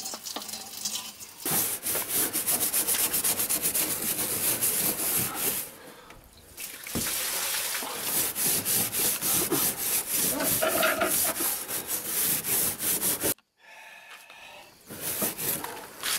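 Rapid back-and-forth scraping of a hand tool over the surface of a plastic barrel at its crack, with a short pause about six seconds in and another near the end.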